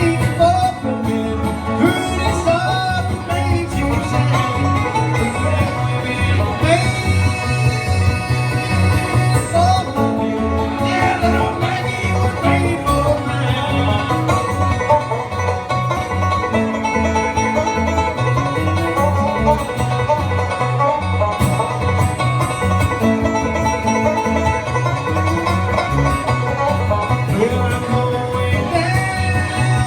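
Live bluegrass band playing an instrumental break, banjo and guitar picking over a steady bass rhythm.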